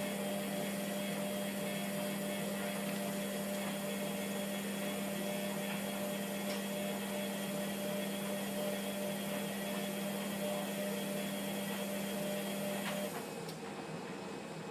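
Hotpoint Aquarius WMF720P washing machine running during a wash, its motor giving a steady hum. About 13 seconds in there is a click and the motor hum stops, leaving a quieter background.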